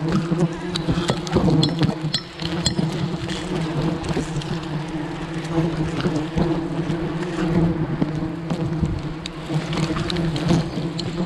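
Steady buzzing of a large swarm of giant honeybees (Apis dorsata) around their nest, a dense low hum with scattered clicks and rustles over it.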